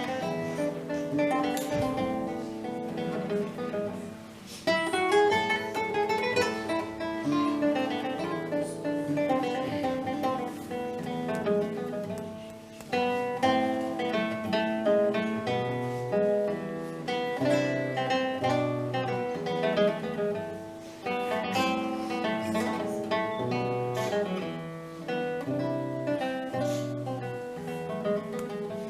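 Solo guitar playing a 19th-century piece: a plucked melody over low bass notes, with some strummed chords.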